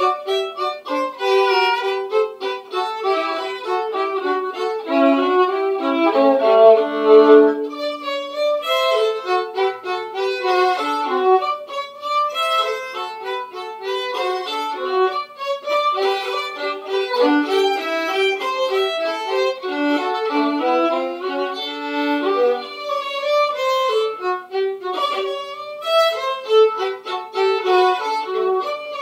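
Two violins playing a tune together in quick bowed notes, with a longer held low note about seven seconds in.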